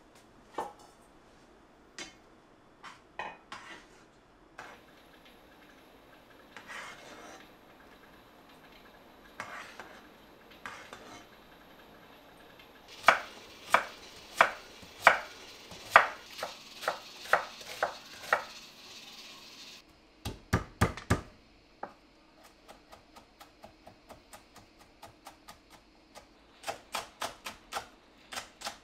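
Chef's knife chopping onion on a wooden cutting board: a run of even, sharp strokes about two a second, later quicker light taps, then more strokes near the end. Before the chopping, scattered clinks and knocks of kitchen utensils being handled.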